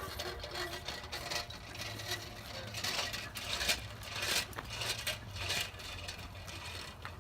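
A child's Radio Flyer bike rolling over rough ground, its wheels crunching and rattling in irregular crackles, over a low steady hum.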